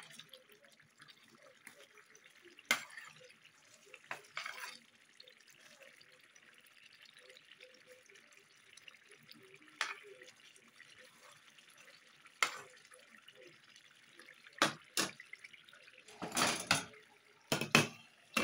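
Tomato fish stew simmering in a stainless steel pot with a steady soft bubbling and sizzling. Scattered sharp knocks of a utensil against the pot break through it, most closely bunched near the end.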